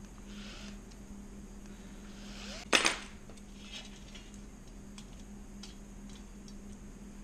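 Small metal parts and an aluminium bracket being handled on a wooden workbench: one sharp knock a little under three seconds in, then a few light clicks and soft rustling, over a steady low hum.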